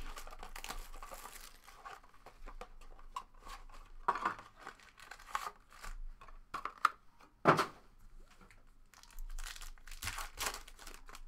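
Shiny Panini Studio basketball card packs being handled and a pack wrapper torn open and crinkled, in irregular crackles with one louder sharp rip about two-thirds of the way through.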